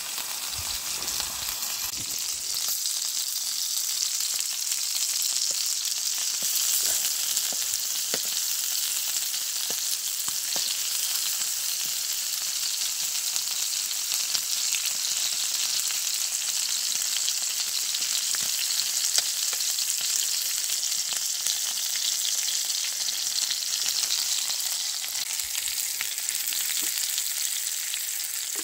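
Chicken pieces sizzling in a ridged grill pan over campfire embers: a steady frying hiss dotted with small pops and crackles, with the pieces now and then stirred and turned with a fork.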